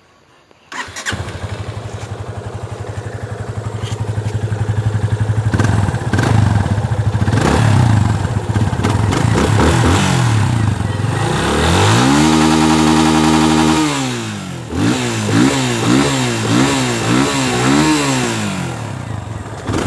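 Single-cylinder Yamaha motorcycle engine started about a second in and settling into a steady idle. It is then revved: a couple of short blips, one longer rev held for about two seconds, then a run of about five quick blips before it drops back to idle.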